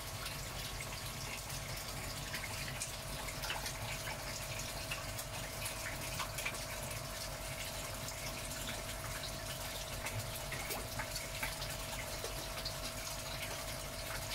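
Water from the koi tank's filter return pouring steadily onto the tank's surface, splashing, with small scattered drips and plops. Under it runs a steady hum with one constant tone.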